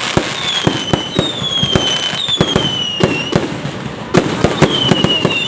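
Aerial fireworks going off in quick succession: many sharp bangs and crackling bursts, with several high whistles falling in pitch over most of a second each.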